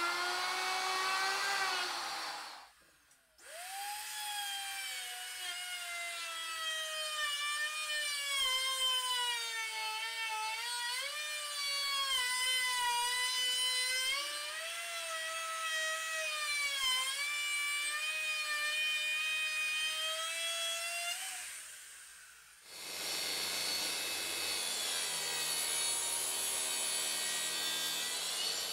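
Porter-Cable router cutting along the edge of a plywood panel: a high whine whose pitch sags and wavers as the bit takes the load, broken off twice for a moment. Over the last several seconds a Makita track saw cuts instead, a rougher, noisier running sound.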